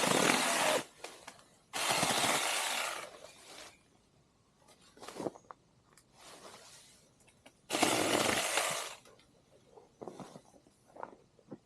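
Saker 6-inch battery-powered mini chainsaw run in three short bursts of about a second each: one stops just after the start, one comes about two seconds in, and one about eight seconds in, as it cuts branches. Light snaps and rustles sound between the bursts.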